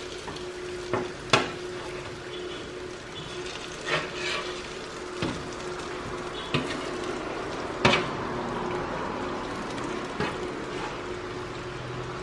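Chicken pieces sizzling on a metal oven tray while a slotted metal spatula turns them, clinking and scraping against the tray about seven times, over a steady hum.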